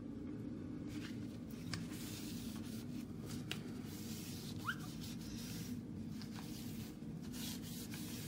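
Hand wiping a white vinyl window frame and sill with a cleaning cloth, Windex and loosened mold coming off: faint rubbing and scuffing strokes, with a short rising squeak about four and a half seconds in. Under it runs the steady low hum of a bathroom exhaust fan.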